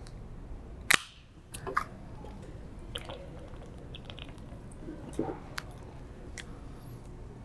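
Drinks being handled and sipped: sipping and swallowing from an energy-drink can, with a sharp click about a second in and a few smaller clicks and rustles as a plastic bottle is opened near the end.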